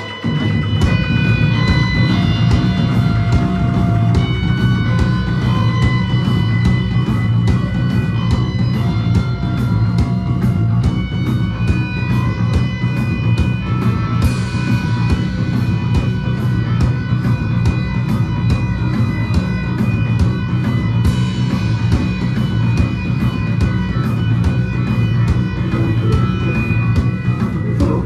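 Rock band playing live without vocals: a heavy, steady bass-and-drum groove under held, droning guitar notes. The cymbals open up into a brighter wash about fourteen seconds in and again around twenty-one seconds.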